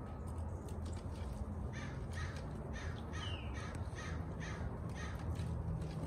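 A crow-family bird calling: a run of about seven short calls, a little over two a second, starting a little under two seconds in.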